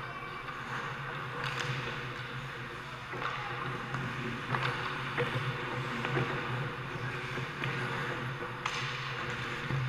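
Ice hockey rink sound heard from behind the goal: a steady low hum, with scattered faint clicks and scrapes of skates, sticks and puck on the ice.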